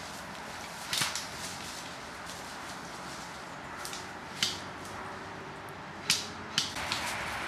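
Airsoft guns firing single shots: about five sharp snaps at uneven intervals over a steady background hiss, the loudest about six seconds in.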